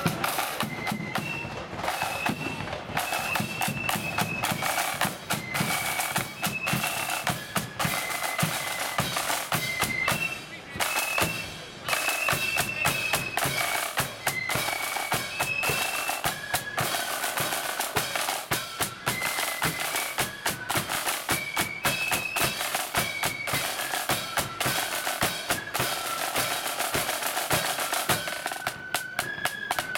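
Marching flute band playing: a high flute melody over rapid, dense snare drumming and bass drum beats, in the loud blood-and-thunder style.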